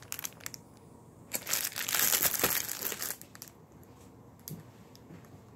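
Crinkling of the clear plastic overwrap on a multipack of cracker sleeves as it is handled, loudest for about two seconds in the middle, then dying down to a few faint taps.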